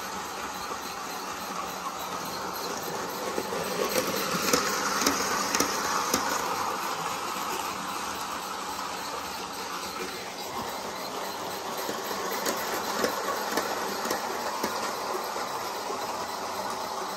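Bachmann G-scale Percy model locomotive running under power, its electric motor whirring steadily as it hauls a rake of wagons around the track. The wheels click over the rails, with runs of sharper clicks and a louder passage about four seconds in and again about twelve seconds in.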